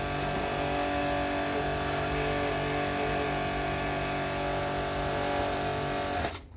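Pressure washer running steadily, a motor hum under the hiss of the spray, cutting off suddenly near the end.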